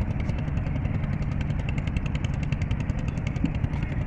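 A small engine running steadily, with a low rumble and a fast, even ticking.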